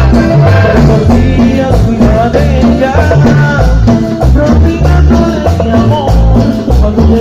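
Cumbia music playing loudly, with a steady, driving bass beat under a bending melody line.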